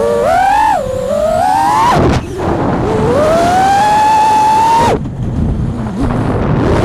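FPV quadcopter's brushless motors whining, the pitch rising and falling with throttle. The whine drops away sharply twice, about two and five seconds in, then climbs steadily again.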